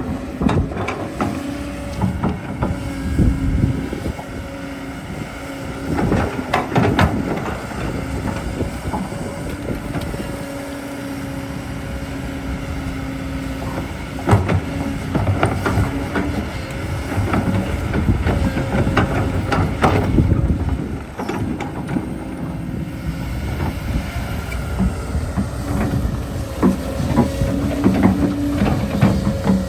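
Excavator at work: a steady machine hum with repeated clanks and knocks from digging.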